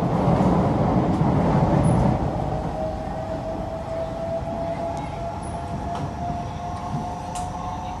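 Cabin noise of a Kawasaki–CSR Sifang C151B metro train running at speed: a steady rumble of wheels on rail, louder for the first two seconds, with a thin whine that rises slowly in pitch from about two seconds in.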